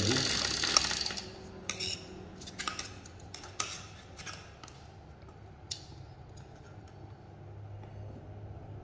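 Scattered light clicks and clinks of a clear plastic bike stand and a metal pedal being handled and set against a Brompton crank arm, with a brief rustle at the start.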